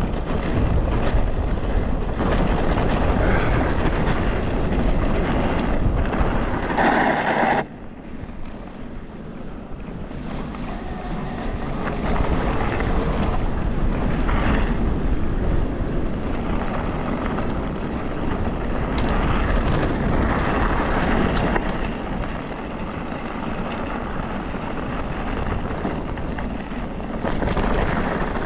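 Riding noise of a mountain bike on a rough, stony track: wind buffeting the microphone and tyres rolling and rattling over the ground. The noise drops sharply about eight seconds in, then builds again.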